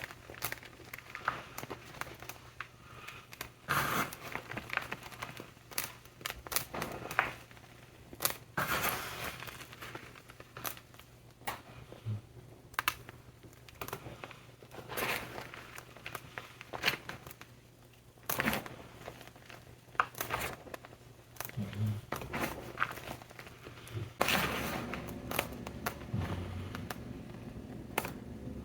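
ETHOS gym chalk blocks topped with shaving gel being crushed: irregular crumbly crackles and crunches, coming in clusters with short pauses between.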